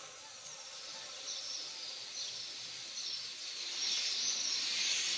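Many small birds chirping together in a dense chorus, growing fuller in the second half.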